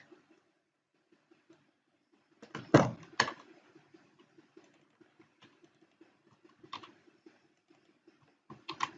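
Computer keyboard and mouse clicks while code is selected, copied and pasted: a quick cluster of sharp clicks about three seconds in, the loudest, then a single click near seven seconds and a few more just before the end, over a faint steady hum.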